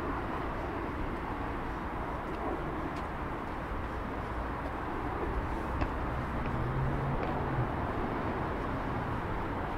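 Steady outdoor city ambience: a low, even hum of distant traffic, with a few faint clicks and a brief low hum partway through.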